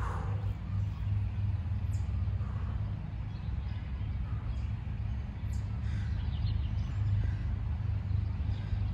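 Steady low outdoor background rumble, with a few faint, short high chirps scattered through it.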